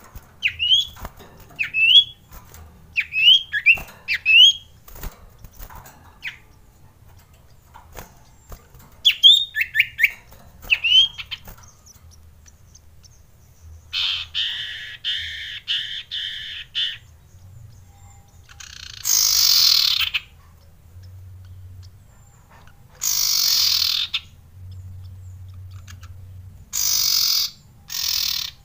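Caged common iora (cipoh) calling: runs of short rising chirps, then a buzzy pulsing call, then three long harsh rasping calls a few seconds apart, the loudest sounds. Scattered light clicks among the first chirps.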